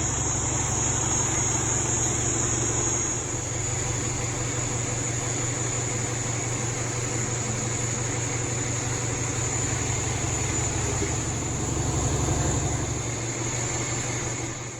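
A vehicle engine idling steadily, its low hum dipping slightly about three seconds in and swelling briefly near the end, over a steady high chorus of crickets.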